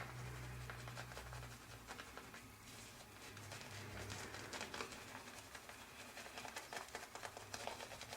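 Wet shaving on lathered stubble: a quick, soft, scratchy pattering of fine strokes that runs on irregularly.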